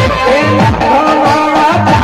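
Live folk song amplified through a loudspeaker system: a man singing into a microphone over a steady, repeating drum beat.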